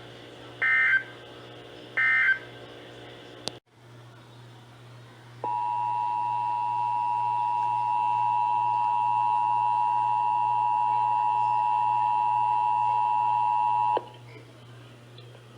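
Two short warbling bursts of Emergency Alert System digital end-of-message code, a click about three and a half seconds in, then the two-tone EAS attention signal, a steady dual tone lasting about eight and a half seconds before cutting off. A low hum runs underneath.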